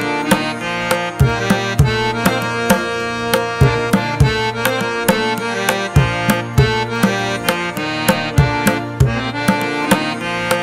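Background music: a regular percussion beat over sustained melodic notes.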